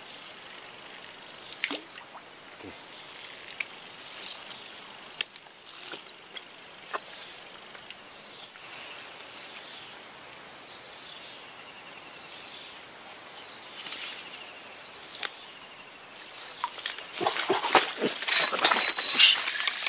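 Insects drone steadily on one high, unbroken note across swampy woodland. About three seconds from the end there is a loud burst of splashing and rustling as a fish takes the bait and is struck.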